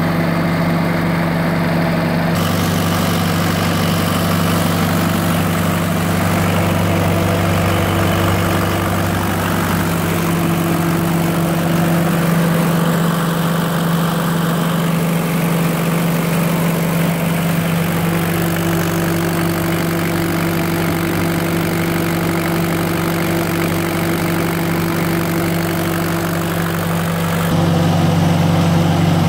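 The diesel engine of a 2008 JCB 8040 mini excavator running steadily at an even speed, heard up close at the open engine bay. It gets a little louder near the end.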